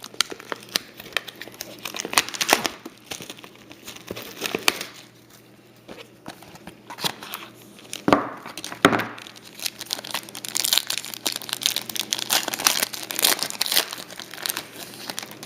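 Plastic wrapper and cardboard of a sealed trading card box being torn open by hand: irregular crinkling, tearing and rustling, with a lull partway through and dense crinkling again in the second half.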